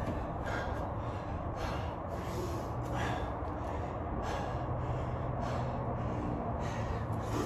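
A man breathing hard during a burpee workout in a weight vest, with sharp, forceful breaths roughly once a second.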